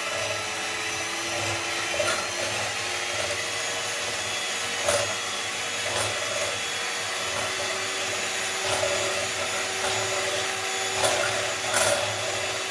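Electric mixer running steadily, beating eggs in a bowl, with a few sharp knocks along the way.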